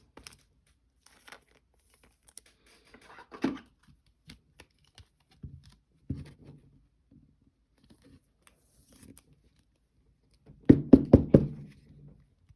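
Trading card packaging being torn and crinkled as cards are handled, in short scattered rustles and clicks, with a quick run of louder rips about eleven seconds in.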